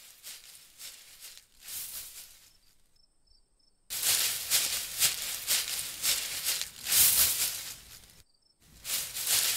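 Dry shrubs and leaves rustling as someone pushes through and rummages in undergrowth. The rustling is faint at first, turns loud about four seconds in, and breaks off briefly near the end. Crickets chirp steadily in the quiet gaps.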